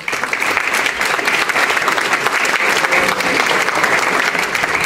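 Applause from a small group of people in a room, breaking out suddenly and keeping up steadily.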